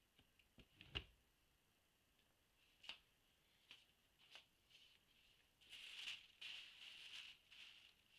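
Faint handling sounds of clothes being moved: a sharp knock about a second in, scattered light clicks, then a stretch of plastic shopping-bag rustling near the end.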